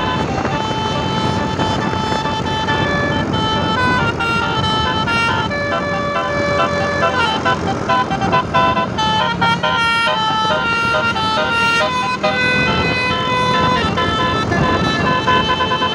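Tour bus's Basuri telolet horn playing a tune of stepped musical notes, several tones sounding together. It holds longer notes at first, then a busier run of quick notes, over steady background noise.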